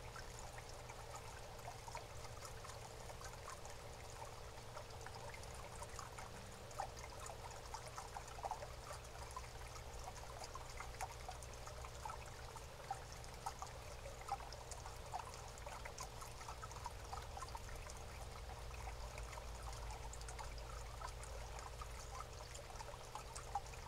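Faint, steady trickling like running water, with many small irregular ticks and a low steady hum underneath.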